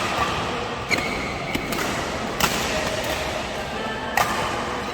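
Badminton racket strikes on a shuttlecock in a rally: three sharp hits, about a second and a half to two seconds apart.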